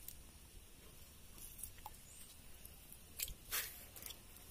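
Faint rustling and squelching of wet tree roots and fishing line being handled, with a few brief louder swishes about one and a half and three and a half seconds in.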